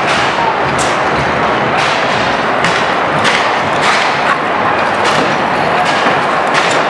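Loud steady din of a street clash between riot police and protesters, broken by sharp knocks and thuds roughly once a second.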